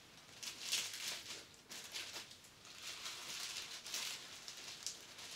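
Plastic wrapping being handled and pulled at where it is taped on, giving faint, irregular rustles and crinkles.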